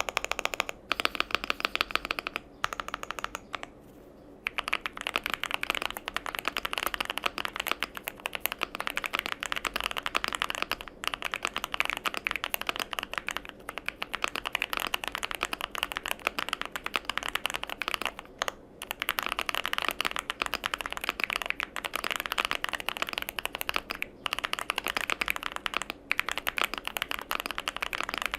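Fast typing on a Noir Z2 mechanical keyboard: a dense, continuous run of super thocky keystrokes, with brief pauses about four seconds in and again near eighteen seconds.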